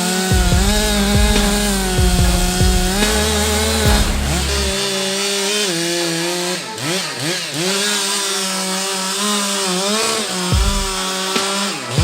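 Chainsaw running at high revs while cutting wood, its engine pitch steady at first, then dipping and rising several times in the second half.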